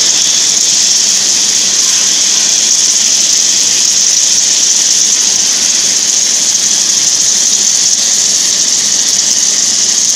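Steady, loud hiss from a torch on an automatic welding-and-cutting carriage working along a steel plate, even throughout with no crackle or breaks.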